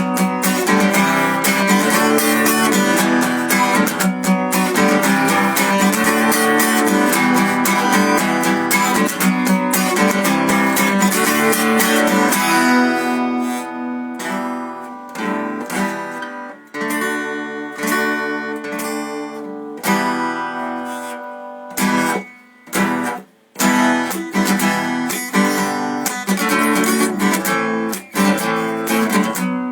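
Acoustic guitar playing an instrumental passage with no voice: steady strumming for about the first twelve seconds, then a sparser, lighter stretch with a few brief gaps, and fuller strumming again near the end.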